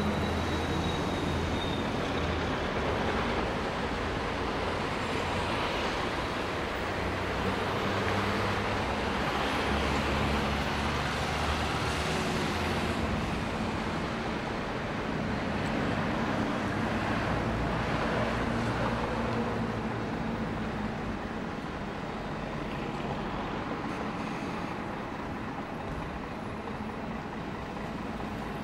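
Fire engines running steadily while pumping, their low engine hum under an even hiss of hose streams spraying water.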